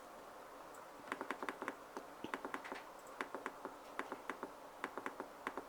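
Quiet typing on a computer keyboard: irregular key clicks, several a second, starting about a second in.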